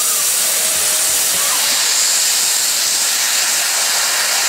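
Ivatt Class 2MT tank locomotive letting off steam: a loud, steady hiss as steam blasts out low around its cylinders, with the drain cocks open.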